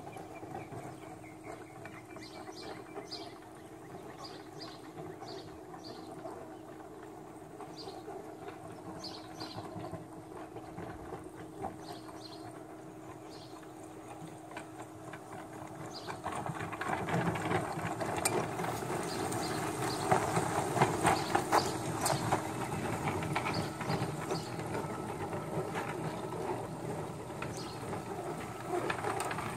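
Battery-powered backyard riding train running on its track, its wheels clicking and rattling over the rails. The rattle grows louder about halfway through as the train comes close.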